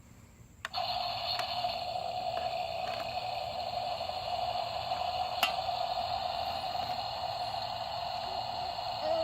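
A battery-powered toy Raptor truck's electric drive motor switches on with a click less than a second in, then runs with a steady whine, with a few light ticks.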